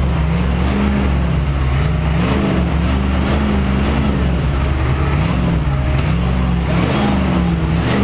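Diesel engines of a CAT skid steer and a stuck Ford F250 flatbed running hard in a mud recovery. A heavy low drone is topped by a tone that rises and falls in pitch about once a second.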